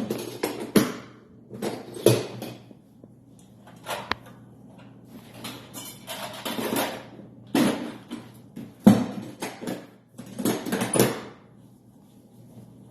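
Irregular clattering and rustling of objects being handled, several short bursts spread unevenly over a faint, steady low hum.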